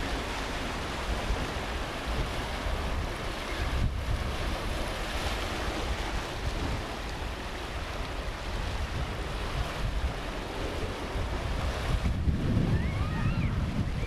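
Small waves washing onto a rocky, sandy shore, with wind rumbling on the microphone.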